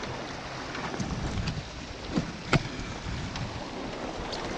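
Surf washing against the jetty rocks, with wind on the microphone, and a few sharp knocks, the loudest about two and a half seconds in.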